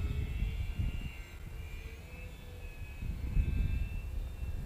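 Faint whine of a small RC foam glider's twin electric motors and propellers flying overhead, its pitch drifting slightly. Gusts of wind rumble on the microphone, loudest a little over three seconds in.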